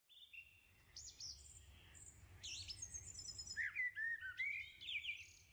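Several songbirds singing and calling over one another: held whistled notes, quick down-slurred chirps and high trills, growing busier after a couple of seconds.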